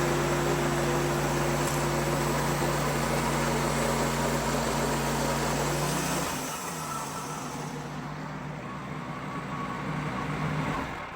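Sawmill engine running steadily during a cut, then dropping to a lower, quieter running about six seconds in as the cut through the red cedar log ends.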